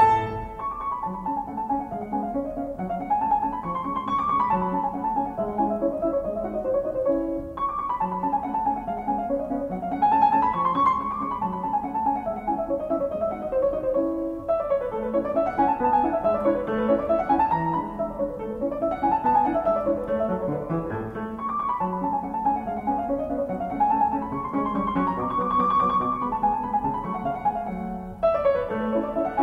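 Background piano music: fast runs of notes rising and falling over a steady accompaniment.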